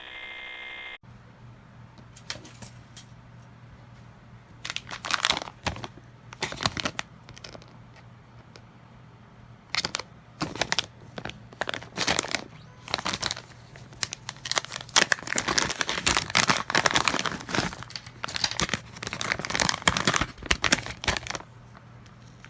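Plastic packaging crinkling and tearing in irregular bursts as a package of cables is opened by hand, over a faint steady low hum.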